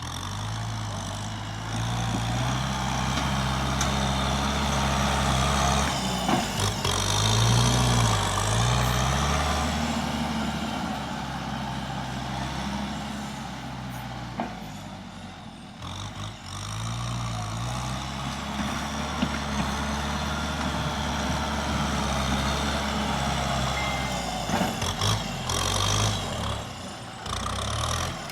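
Tractor engine running, its speed rising and falling a few times, with a fainter high wavering whine over the engine note.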